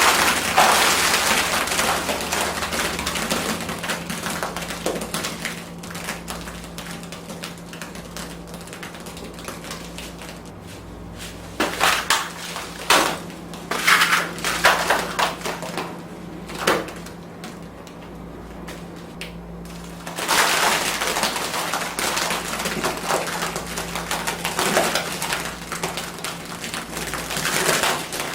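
Wet, messy splattering and squelching of pies and slime being dumped and smeared over a person. A few sharp splats come about halfway through, and a steady low hum runs underneath.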